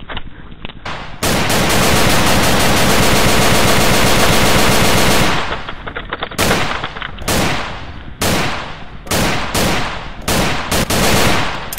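Machine-gun fire sound effect added in editing: one long burst of about four seconds, then a string of short bursts.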